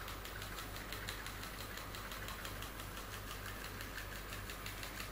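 A homemade putt-putt (pop-pop) steam boat running, with its candle-heated soda-can boiler and condenser-pipe jets giving a fast, even ticking.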